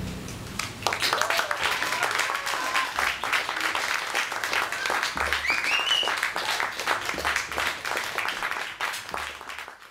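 A live band's last chord dies away in the first second, then an audience applauds with scattered cheers and shouts, the clapping fading out just before the end.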